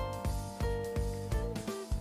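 Background music: held pitched notes over a steady beat.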